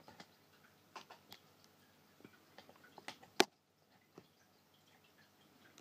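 Scattered light clicks and taps of plastic figure-stand parts being handled and fitted, with one sharp, louder click about three and a half seconds in.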